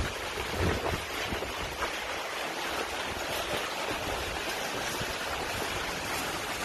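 Steady hiss of steam rising off the hot stones of a lovo earth oven around foil-wrapped food.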